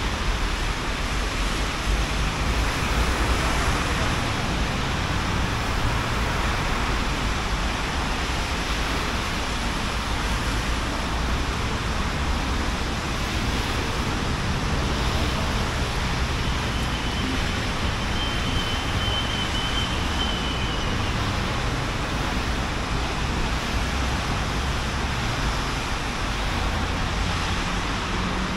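Steady city traffic on rain-wet roads: the continuous hiss of tyres and falling rain over a low rumble of passing vehicles.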